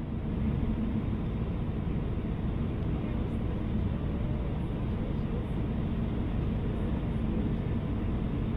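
Steady low rumble of an Airbus A319's engines and airflow, heard inside the passenger cabin.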